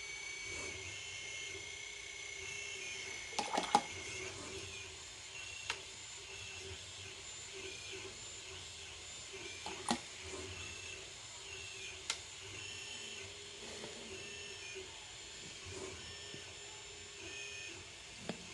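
A few sharp taps over a steady high-pitched whine that steps between pitches; the loudest taps come as a quick cluster about four seconds in, with single taps near six, ten and twelve seconds.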